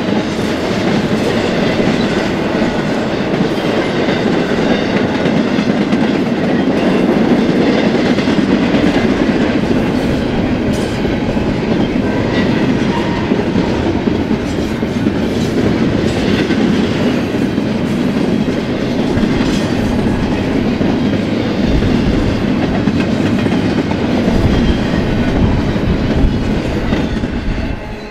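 Intermodal freight cars rolling past at speed: a steady rolling rumble with scattered clicks of wheels over the rails. It drops away right at the end as the last car clears.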